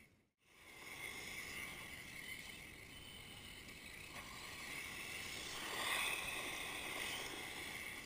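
Radio-controlled car driving over loose gravel on a dirt pile, its tyres scrabbling and kicking up gravel, loudest about three quarters of the way through. There is a brief dropout just at the start.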